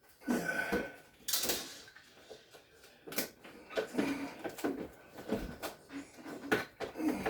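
Scattered knocks, clatter and rustling as parts are handled during work on a refrigerator, with a brief hissing rustle about a second and a half in.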